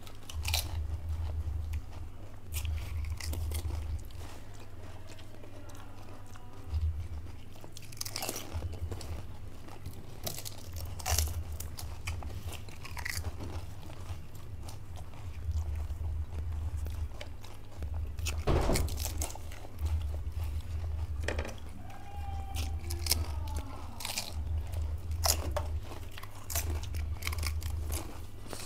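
Crisp fried pani puri shells crunching as they are bitten, with chewing in between. The crunches come irregularly, with a louder cluster a little past the middle, over a low hum that swells and fades every second or two.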